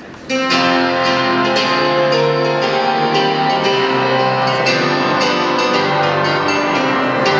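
Instrumental music starts suddenly just after the start: a steady passage of held chords with a melody over them.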